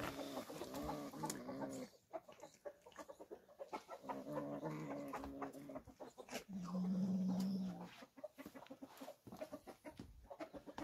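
Hens clucking in a run of wavering calls, with one longer, steadier call about six and a half seconds in.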